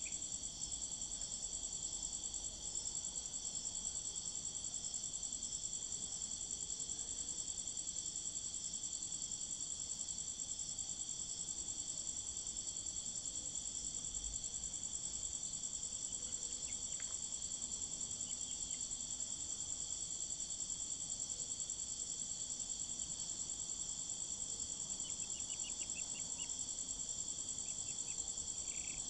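Steady, high-pitched trilling of night insects. A few faint short peeps from the Brahma chicks come near the end.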